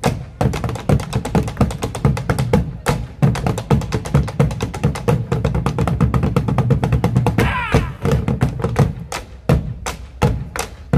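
Bombo legüero drums beaten with sticks in a fast, driving malambo rhythm, with the dancer's boot-stamping zapateo among the strikes.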